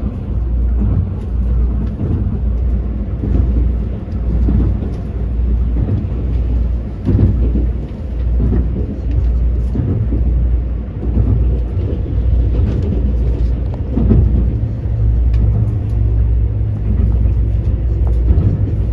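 Loud, bass-heavy outro music with a deep beat that pulses at fairly even intervals.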